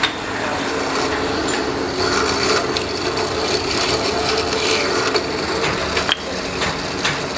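Small bench drill press running with a steady hum as its bit drills into a wooden knife-handle block, with a few sharp knocks of wooden blocks set down on the floor, one clear one about six seconds in.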